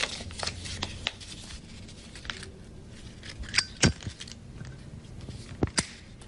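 Small clicks and rustles as a cigarette and lighter are handled, with a sharp click about two-thirds of the way in as the lighter is struck, and another sharp click near the end.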